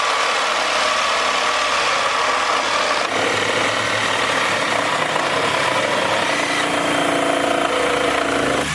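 DeWalt reciprocating saws running flat out, their blades cutting into wood with a steady high motor whine and a rasping saw noise. About three seconds in, the motor tones change and a lower hum joins.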